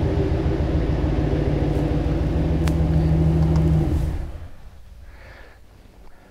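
Ram 1500's V8 engine idling steadily, then shut off about four seconds in, after which only a low background is left. A single sharp click is heard a little before the shut-off.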